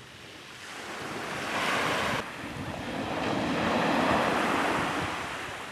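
Sea waves washing onto a beach in two swells: the first builds and cuts off suddenly about two seconds in, the second builds to a peak near the middle and fades. Wind rumbles on the microphone throughout.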